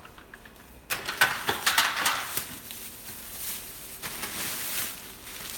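Gloved hands rummaging in a bin of stored items: plastic bags rustling and crinkling, with objects clicking and knocking against each other, starting about a second in and dying down toward the end.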